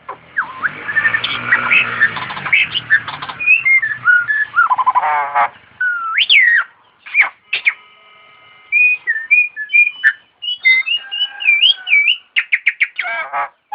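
A jalak (starling) singing a varied song of whistled glides, harsh squawks, clicks and a fast rattling series, with short pauses between phrases.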